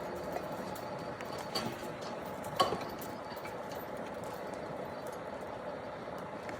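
Steady hum of construction machinery with a few sharp metallic clinks, the loudest about two and a half seconds in.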